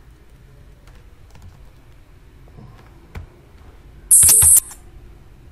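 Computer keyboard being typed on, scattered key clicks. About four seconds in comes the loudest sound, a sharp half-second burst of high hiss with clicks in it.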